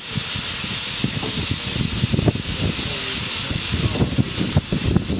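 Steady hiss of escaping steam from a standing LMS Ivatt Class 2MT steam locomotive, over an uneven low rumble.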